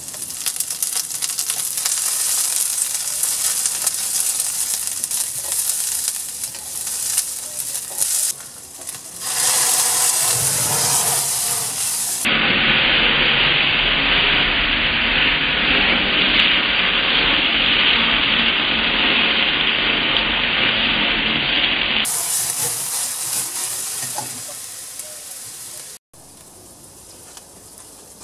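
Sliced onions frying in oil in a stainless-steel pan over a wood fire: a steady, hissing sizzle. About twelve seconds in it gives way abruptly to a louder, duller rush lasting about ten seconds as flames flare up around the pan, and near the end the sound drops to a quieter sizzle.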